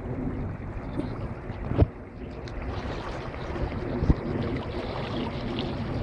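Swollen River Thames near flood level rushing past in fast, turbulent water: a steady rushing noise. Two brief low thumps come about two and four seconds in.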